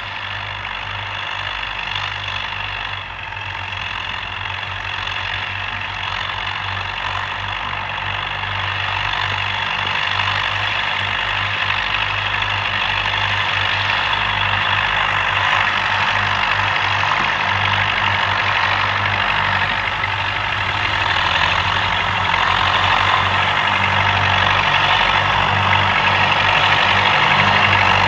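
Two UTB 650 tractors' diesel engines running steadily under load as they pull disc harrows over tilled soil, growing louder as they approach.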